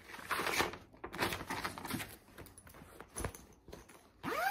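Rustling and handling of a fabric project bag, in irregular bursts, with a sharp click a little after three seconds. A short rising pitched sound comes near the end.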